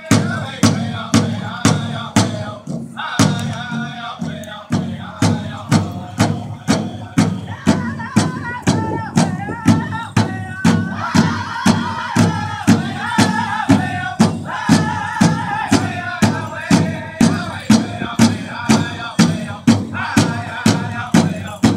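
Pow wow drum group playing a song: a large powwow drum struck in a steady beat of about two strokes a second, with high singing in unison over it. The drum comes in right at the start, joining singing that was already under way.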